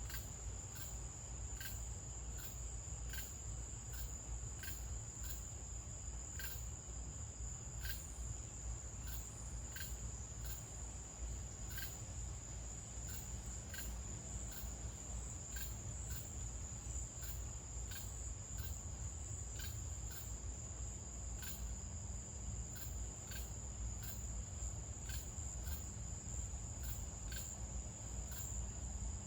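Night insects, crickets, calling in a continuous high-pitched trill, with a sharp tick about twice a second and a low steady hum underneath.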